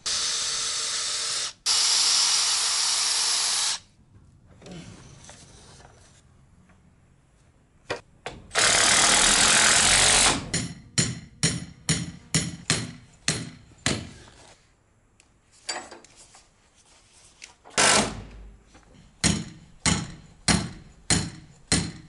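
Cordless drill driving screws into wooden brace lumber: two long runs at the start and another about eight seconds in. Then a string of sharp hammer blows, about two or three a second, from about ten seconds in and again near the end.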